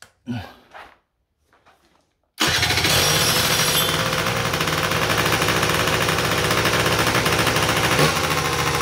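Honda Dio scooter engine starting abruptly about two seconds in, then running steadily with a fast even beat, a short sharp knock near the end. It runs on a freshly replaced stator that is charging strongly.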